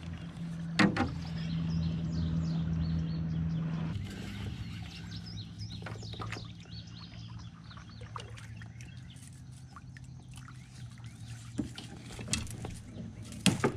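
Plastic sit-on-top kayak gliding into overhanging brush: a few sharp knocks on the hull, one about a second in and two near the end, over a steady low hum, with birds chirping.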